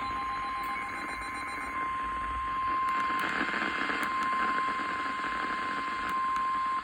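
Steady single-pitch warning alarm tone of a weather-alert broadcast, the roughly 1050 Hz tone that announces a warning, here a flash flood warning. For the first couple of seconds a faster pulsing beep sounds over it. The tone cuts off sharply at the end, where the announcement voice begins.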